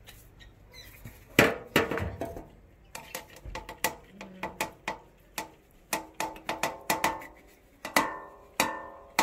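Kitchenware clattering: irregular knocks and clinks of containers being handled, sparse at first and coming thicker in the second half. Several strikes ring briefly.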